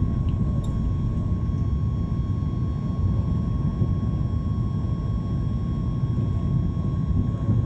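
Jet airliner cabin noise just after takeoff: a steady low rumble of engines and airflow with a thin steady whine above it.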